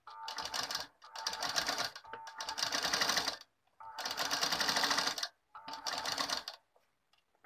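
Black domestic sewing machine stitching a seam, its needle mechanism rattling rapidly in four runs of one to two seconds with brief stops between, then falling quiet near the end.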